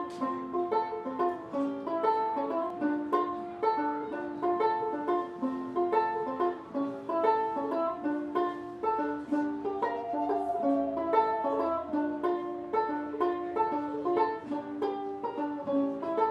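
Instrumental string-band music with a banjo picking a steady run of plucked notes over other plucked strings. About ten seconds in, a wavering held tone joins briefly.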